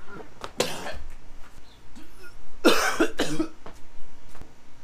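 A man coughing and gagging after swallowing raw egg. There is a short burst about half a second in, then a longer, two-part fit near the middle.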